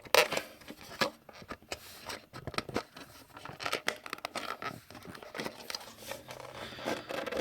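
Clicks and rustling as a battery-powered plastic Dalek toy is handled and its switch worked. No motor starts: the toy is dead.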